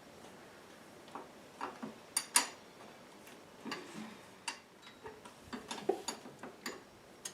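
A wrench clicking and tapping against the nut and metal parts on top of a Jeep starter solenoid while loosening the battery-cable nut: a string of irregular sharp clicks, the loudest about two seconds in.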